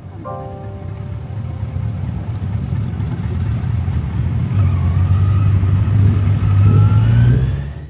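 Motorcycle engine running under way and gaining speed, growing louder, its pitch climbing over the last few seconds before it cuts off suddenly. The last piano notes die away at the very start.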